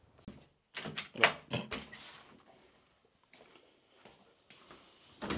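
A door being opened and handled: a quick run of knocks and clatter about a second in, then fainter rustling and a few more knocks near the end.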